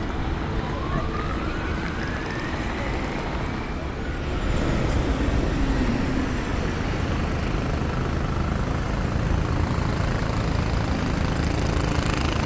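Riding inside a moving transit vehicle: a motor whine climbs steadily in pitch over the first few seconds, then a louder low rumble sets in about four and a half seconds in and runs on.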